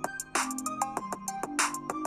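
Electronic background music: held synth notes over a fast ticking beat, with a hissing hit twice.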